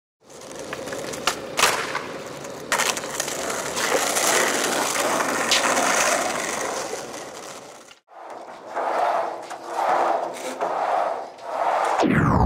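Skateboard wheels rolling and scraping on rough pavement, with several sharp clacks from the board. The sound cuts out for a moment about eight seconds in and comes back in a series of swells, and a falling sweep sounds near the end.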